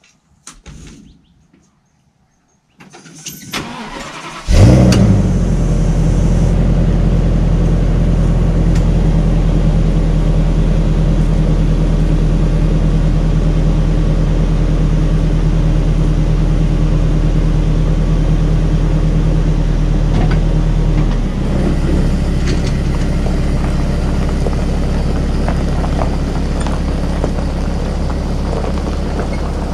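A Class A motorhome's engine is cranked for about a second and a half, catches with a loud burst, then idles steadily. About two-thirds of the way through, the pitch of the idle changes and settles.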